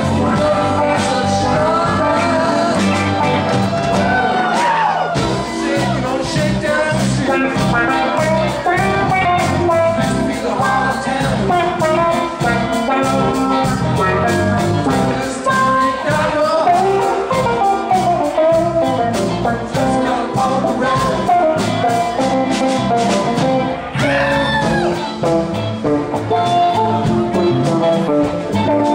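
Live rock band playing: electric guitars, bass guitar and drum kit, with a bending melodic line from a lead guitar or voice over the top. A steady drum beat comes in about five seconds in.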